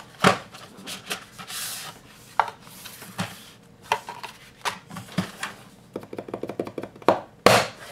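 A paper sleeve rubbing as it slides off a cardboard pencil box, then cardboard clicking and knocking against a wooden tabletop as the box is handled. The loudest is one sharp knock near the end.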